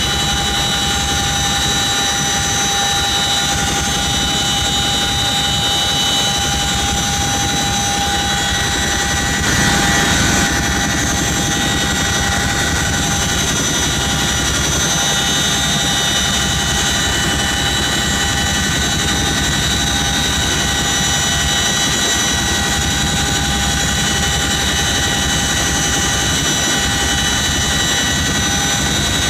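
CH-47 Chinook's twin turboshaft engines and tandem rotors in steady flight, heard from the cabin at the open rear ramp: a constant high turbine whine over a dense, even rumble, with a brief louder swell about ten seconds in.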